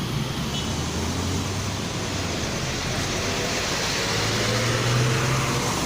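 Road traffic noise with a vehicle engine running low, its hum growing louder about four seconds in and easing off near the end.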